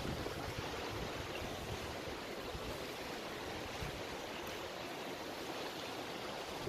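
Steady rush of running water, like a stream.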